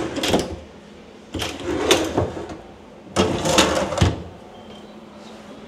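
Wicker basket pull-out drawers in a kitchen base cabinet sliding open and shut on their runners, three strokes each lasting under a second, with a sharp knock about four seconds in as one closes.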